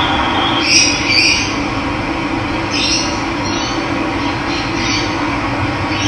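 Running water with a steady rush. Over it, birds give short scratchy calls: two close together about a second in, then a few more spread through the rest.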